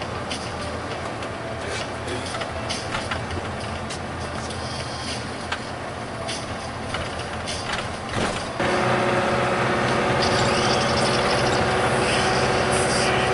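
Interior noise of a moving bus: engine and road noise with scattered rattles and clicks. About two-thirds of the way through it turns suddenly louder into a steady drone of several held tones.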